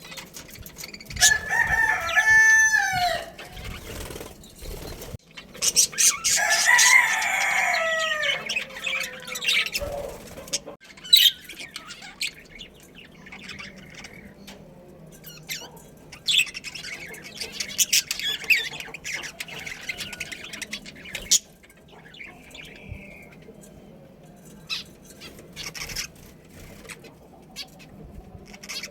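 Rooster crowing twice: a short crow about a second in, then a longer crow at about five seconds whose last note falls in pitch. Softer high bird chatter and rustling follow.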